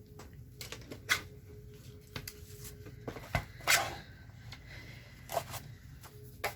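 Paper and craft tools being handled on a worktable: rustling and scraping, with a few short, sharp knocks and swishes spread through, the loudest a little under four seconds in.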